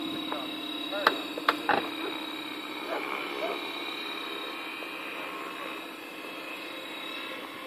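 Align T-Rex 550E electric RC helicopter in flight: a steady hum from the rotor with a high, even whine from the electric motor and gears. Three sharp clicks between about one and two seconds in.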